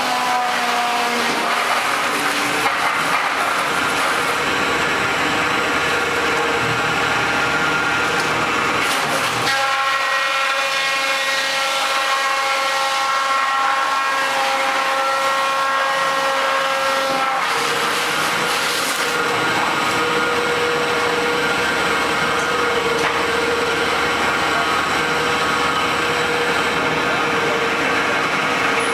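Sawdust machine (wood crusher) running steadily and loud, with a whine whose pitch shifts a few times as it grinds wood to powder.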